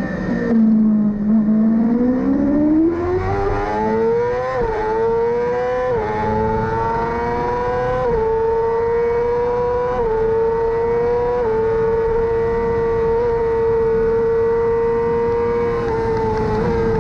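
Yamaha R6 inline-four racing engine heard continuously from on board. The revs drop low about half a second in, climb again through a few quick gear changes, then hold high and nearly steady at full throttle, with a slight dip near the end.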